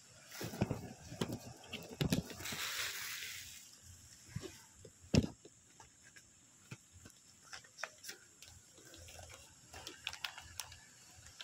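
Handling noise close to a phone's microphone: scattered knocks and clicks, with a rustle about two seconds in and one sharp knock about five seconds in.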